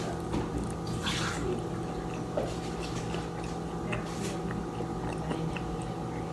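Soft wet eating noises, a few brief smacks and squishes of chewing, over a steady background hum.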